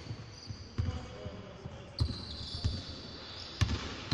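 Basketball being dribbled on a wooden court floor: several separate dull thumps, roughly a second apart.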